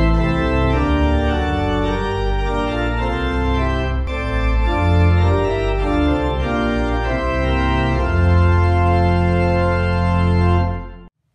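Organ music: held chords over deep bass notes, fading out and stopping near the end.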